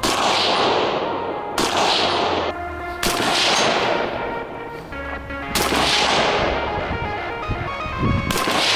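Del-Ton DTI Sport AR-15 rifle firing five slow single shots, one to three seconds apart, each crack trailing off in a long echo. Background music plays underneath.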